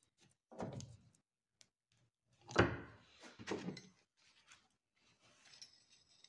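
Three dull thuds, the loudest about two and a half seconds in, followed by faint clicks.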